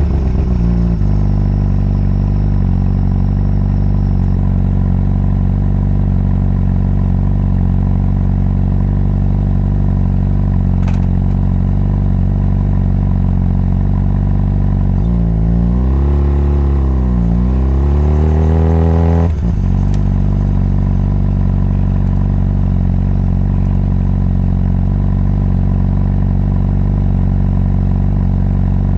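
Honda CBR600RR inline-four engine running at a steady engine speed. About halfway through, a louder swelling passage with shifting pitch lasts a few seconds, then cuts off abruptly back to the steady note.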